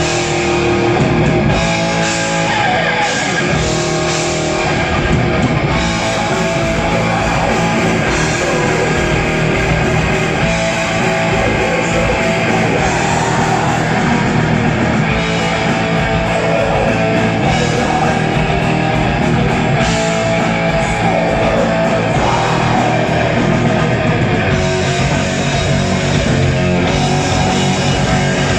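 Metal band playing live, with loud electric guitars, at a steady high level.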